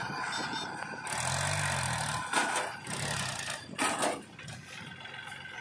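Powertrac 434 DS tractor's diesel engine running hard under the weight of a mud-loaded trailer, its note rising and falling once about a second in. There are a few sharp knocks near the middle.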